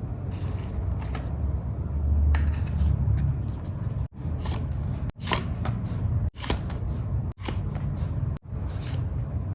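Scissors cutting paper: soft paper handling at first, then crisp snips about once a second from about four seconds in.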